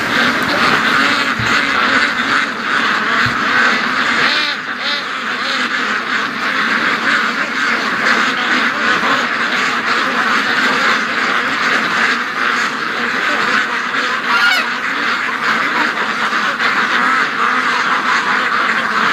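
A large flock of domestic ducks quacking all at once in a dense, unbroken din of overlapping calls, with a few single calls standing out now and then.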